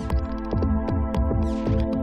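Electronic music with a steady kick-drum beat under sustained synth chords.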